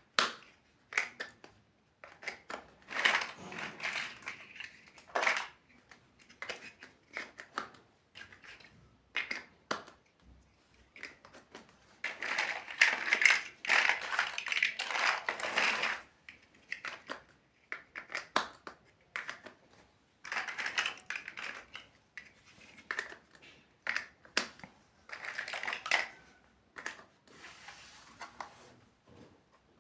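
Plastic building bricks clicking and rattling as they are handled and snapped together, with several longer stretches of scraping and rummaging among the pieces.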